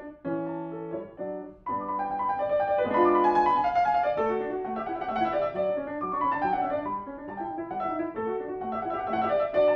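Grand piano played solo: quick classical passagework with a brief break about a second and a half in, then fast runs of notes falling in pitch.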